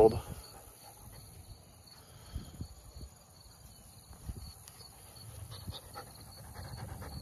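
A Dutch Shepherd–Malinois mix puppy panting quietly and moving about in grass, with a few soft little knocks, while crickets chirp steadily.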